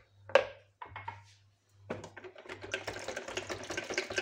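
A hand whisk beating a milky liquid in a plastic measuring jug. There is a sharp knock shortly after the start, then from about two seconds in a fast, steady rattling of whisk wires against the jug.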